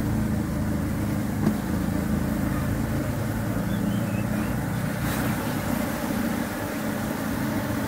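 Steady low buzzing hum of a mass of Asian honeybees (Apis cerana) around an opened hive box, with a single light knock about one and a half seconds in.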